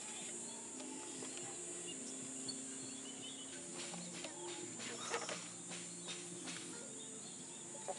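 Quiet garden ambience: birds chirping over a steady high hiss. A few soft knocks and clicks come about halfway through as a surfboard is lifted and fitted into a motorcycle's board rack.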